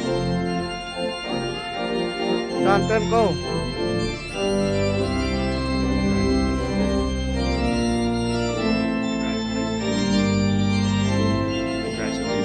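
Organ playing sustained chords that change every second or two, with a brief voice over it about three seconds in.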